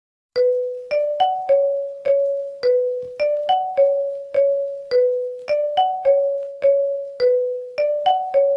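Mobile phone ringtone: a simple melody of short, decaying bell-like keyboard notes, about two a second, starting after a brief silence. The same short phrase loops over and over.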